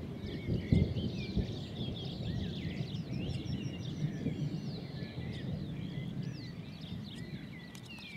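Songbirds singing a continuous stream of quick chirps and whistles over a low, uneven rumble of wind.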